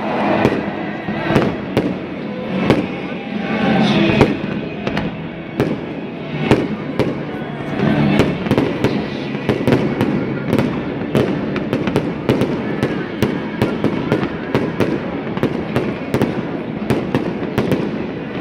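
Fireworks going off in a rapid, irregular barrage of bangs and crackles, several a second, without a break.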